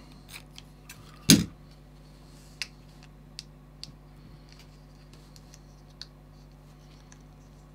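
Light clicks and taps of fingers handling a tiny receiver board and plastic heat-shrink tubing, with one sharper knock just over a second in and a few faint ticks after it.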